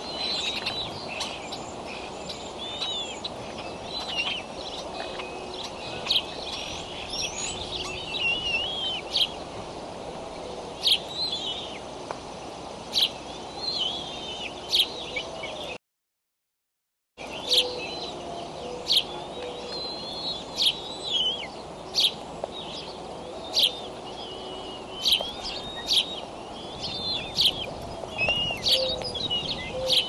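Birds chirping and calling, many short sharp notes and quick warbles one after another, over a steady outdoor background hiss. The sound cuts out completely for about a second and a half midway.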